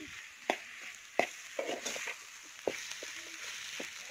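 Metal spoon stirring tomatoes, shallots and green chillies frying in oil in a metal pot over a steady sizzle, with a few sharp clinks of the spoon against the pot, the loudest about half a second in, just past a second and near three seconds.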